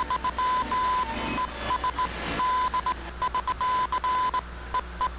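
Morse code: a single-pitch beep keyed in dots and dashes, received over a shortwave broadcast with steady radio hiss behind it.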